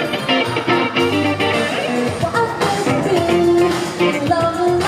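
Live band playing an upbeat synthpop/freestyle song over a PA, with electric guitar prominent and a woman singing lead.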